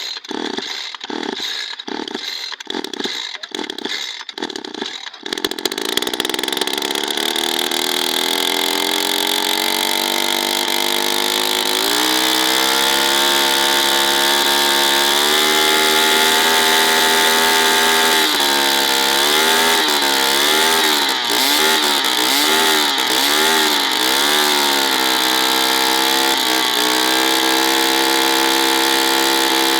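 Small two-stroke engine: a run of evenly spaced pulses for about five seconds, then it runs steadily, its pitch climbing, and later the revs rise and fall repeatedly as the throttle is worked.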